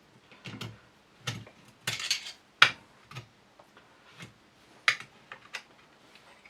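Small steel shotgun parts clicking and knocking against each other and the receiver as they are handled and fitted by hand: a string of irregular sharp clicks, the loudest about two and a half seconds in.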